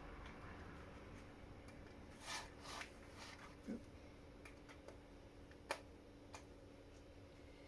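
Faint, scattered clicks and taps of small parts being handled on a workbench, over a steady low hum from the room.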